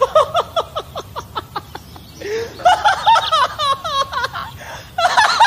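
High-pitched giggling, comic laughter laid over a lion grimacing: a fast run of short falling 'ha' notes, about seven a second, then after a brief gap a denser, chirpier burst of laughter.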